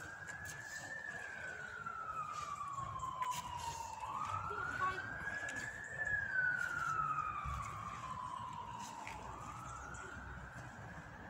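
Emergency vehicle siren sounding a slow wail: one tone rising over a second or two and then falling slowly for about three seconds, repeating about every five seconds.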